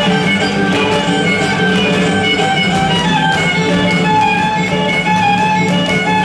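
Mexican folk dance music played on violin and guitar, with quick percussive taps of the dancers' footwork over it.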